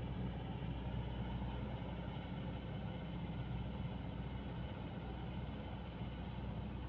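Heavy diesel engine running steadily with an even low hum.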